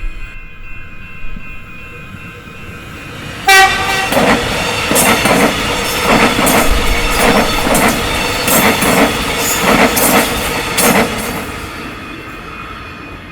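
A train sounds one short horn blast, then passes close by, its wheels clacking over the rail joints in a regular rhythm of about two a second before fading near the end.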